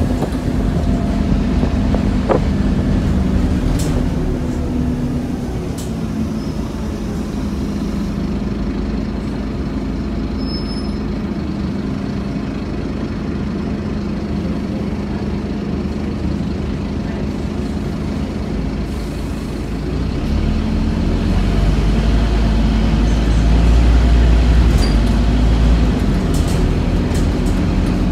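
Scania OmniCity single-deck bus's diesel engine running with road noise as the bus drives along, heard from inside the passenger saloon, with a few light rattles early on. The low engine rumble grows louder and deeper about two-thirds of the way through.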